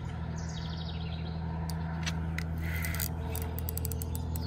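Fishing reel being cranked steadily, its gears whirring and ticking, as line fouled with weeds is reeled in. Short, fast, falling bird trills sound twice.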